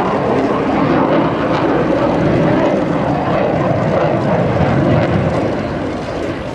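Jet noise from an F/A-18C Hornet's two GE F404 engines as it flies past, steady and loud, easing off slightly near the end.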